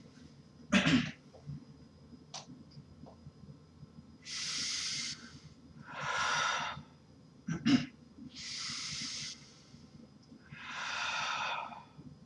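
A man taking slow, deep, deliberate breaths as he settles into a trance: two full in-and-out breaths, each lasting about a second, with long pauses between them. A short, sharp sound, the loudest thing here, comes about a second in, and another just before the second breath cycle.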